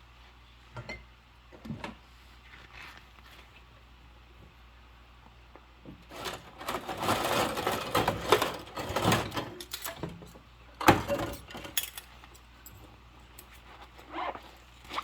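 Hand dishwashing with rubber gloves: a few light knocks, then about four seconds of busy scrubbing and clattering of dishes, a sharp clack of a dish being set down, and scattered small clinks near the end.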